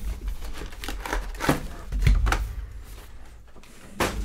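Cardboard trading-card hobby box being opened and its foil-wrapped packs handled and set down on a table: a run of short crinkly rustles and light clicks, with a louder knock near the end.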